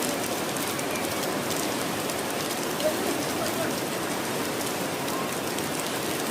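Steady rain falling and splashing, with one brief knock a little under halfway through.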